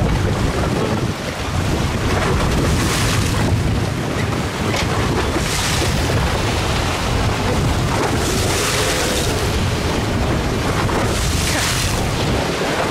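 Strong wind buffeting the microphone over choppy open water. Waves wash and splash in surges every few seconds.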